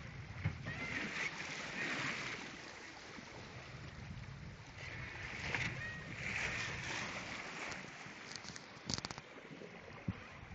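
Water rushing and splashing along the hull of a small sailboat under sail, swelling in two surges as the boat rides the waves, over wind buffeting the microphone. A few sharp clicks come near the end.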